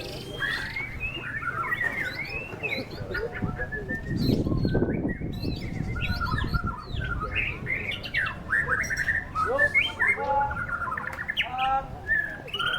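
White-rumped shama (murai batu) singing a fast run of varied whistled notes, slurs and rapid trills. A loud low rumble of noise comes in around four seconds in.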